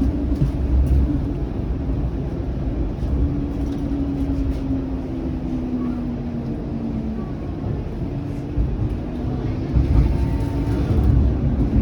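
Flexity Outlook low-floor streetcar running along the track, heard from inside the car: a steady low rumble with a motor whine that falls slightly in pitch partway through.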